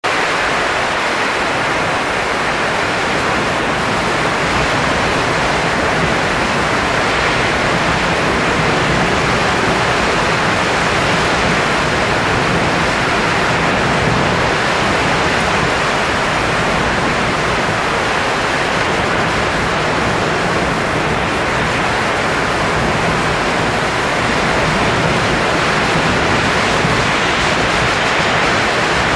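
A blowing sound effect: a steady, even rush of noise, like strong wind or rushing air, that holds without a break.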